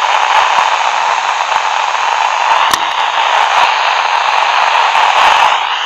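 Radio receiver hissing with open static and no signal, a steady rushing noise, with a single sharp click a little under three seconds in.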